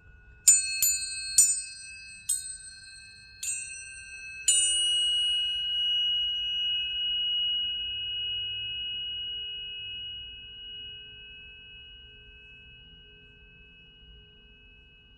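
Planetary tuning forks struck six times in about four seconds, each strike a bright metallic ping. After the last strike a pure high tone rings on and slowly fades away.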